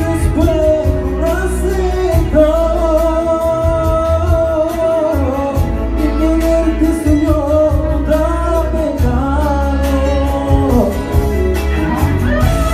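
A man singing a slow melody into a microphone, holding long notes and sliding between them, over loud amplified backing music with a heavy bass.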